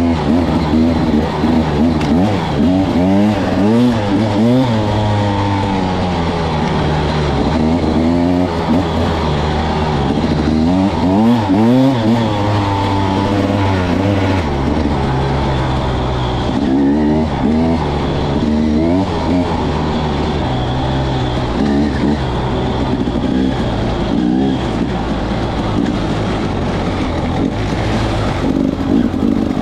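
A Husqvarna TE300's single-cylinder 300 cc two-stroke engine under way on a dirt trail. Its pitch rises and falls again and again as the throttle is opened and closed.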